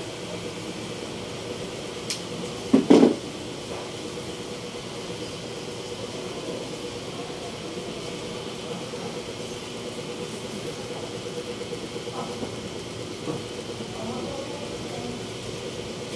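Steady mechanical hum with a few fixed tones, with a sharp knock about three seconds in.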